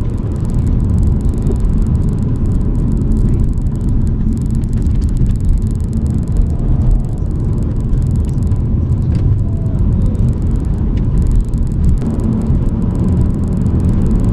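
BMW E92 coupe's straight-six engine running while the car drives along, with a steady low rumble of engine and road noise.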